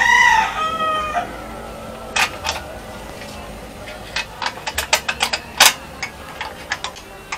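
A rooster crowing, which ends about a second in. It is followed by a run of sharp, light clicks and clinks as a metal retaining bracket is worked loose by hand on top of a scooter's fuel pump.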